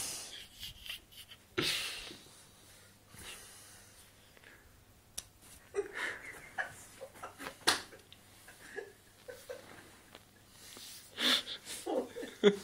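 A man sleeping off drink breathing heavily and wheezing in irregular bursts, with a few sharp clicks in between.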